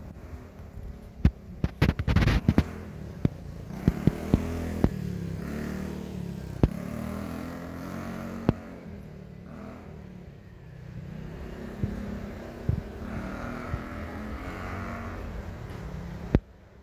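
Street traffic: a motor vehicle engine running by in a low, steady rumble, with sharp knocks on the microphone in the first few seconds. The sound drops off suddenly just before the end.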